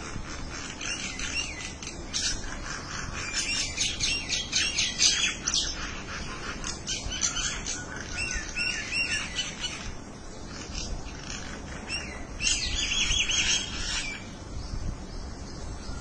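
Common mynas chattering: three bouts of rapid, repeated calls, the loudest about four to six seconds in and another short burst near the end.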